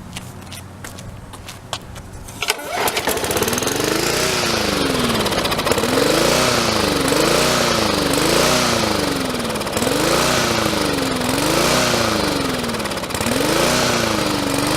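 Cold start of a Murray push mower's Briggs & Stratton engine: after a few clicks it catches about two and a half seconds in and runs, its speed rising and falling over and over.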